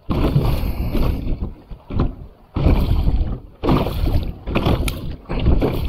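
Kayak paddling: a rush of water and paddle noise with each stroke, roughly one stroke a second, with wind buffeting the microphone.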